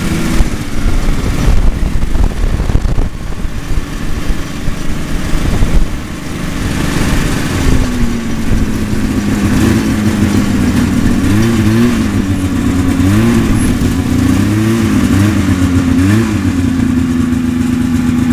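Snowmobile engine running under way with rough track and wind noise for the first several seconds, then easing off to a steady idle. Around the middle it is given several short blips of the throttle, each rising and falling, before settling back to idle near the end. The rider thinks the carburettor is jetted too rich.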